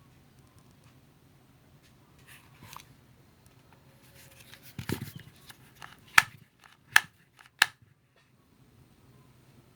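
A dull thump about halfway through, followed by three sharp clicks less than a second apart, over a faint low hum; no motor is running.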